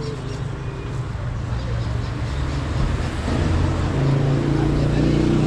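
Motor vehicle engine running with a steady low hum that grows louder about three seconds in.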